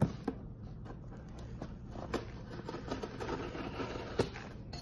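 A cardboard box being handled and pried open: faint scraping and rustling of cardboard, with a few light knocks.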